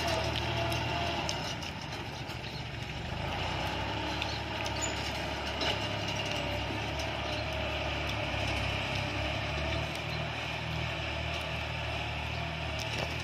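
Farm tractor's diesel engine running steadily as it pulls a disc plough across loose soil.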